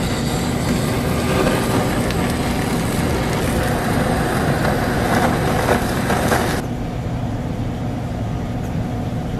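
Butane kitchen torch hissing steadily as it sears sushi. The hiss cuts off abruptly about two-thirds of the way in, leaving a quieter, lower steady hum.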